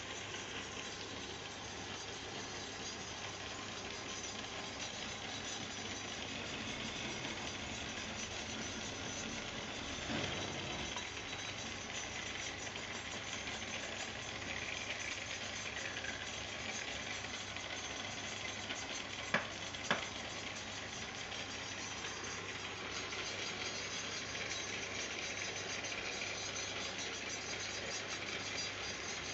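Wood lathe running with a turning tool cutting the spinning wood: a steady hiss of shavings over a low motor hum. Two sharp clicks about two-thirds of the way through.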